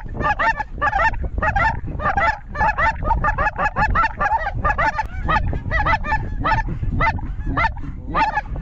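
Goose calling: a dense, rapid run of short honks and clucks, several a second, without a break, over a steady low rumble.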